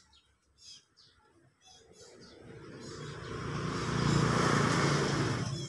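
A motor vehicle approaching, its noise growing steadily louder over about two seconds and then holding until it cuts off suddenly; faint high chirps come before it.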